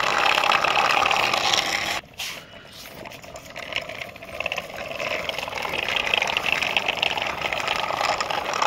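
A toy metal tractor and its trailer rolling over rough concrete, the small wheels giving a steady scraping rattle. It drops off sharply about two seconds in and builds back up from about four seconds.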